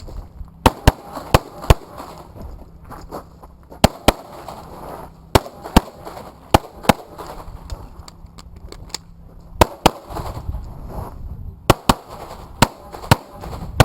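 Handgun fired in a competition course of fire: about sixteen sharp shots, mostly in quick double taps a fraction of a second apart, with short pauses between pairs and one longer gap near the middle.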